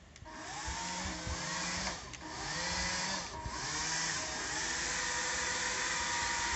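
Electric propeller motors of a radio-controlled G.I. Joe Killer Whale hovercraft toy whirring with a steady whine. The motors cut out at the start and ease off twice more, about two and three and a half seconds in, each time spinning back up with a rising pitch.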